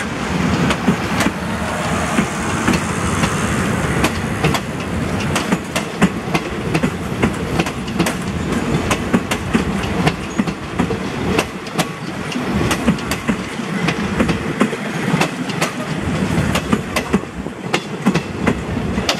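State Railway of Thailand passenger coaches rolling past close by, their steel wheels clacking over the rail joints in a continual run of sharp clicks over a steady rumble.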